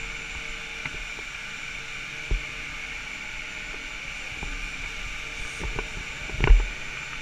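Steady hum of chairlift station machinery, with scattered clicks and knocks. About six and a half seconds in comes a loud thump as the arriving chair seat meets the skiers loading onto it.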